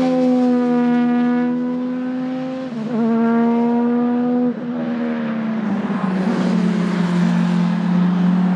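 Opel Calibra ITC race car's 2.5-litre V6 running at high revs, its pitch sagging slowly and dropping abruptly twice, about 3 and 4.5 seconds in, then growing louder and rougher toward the end.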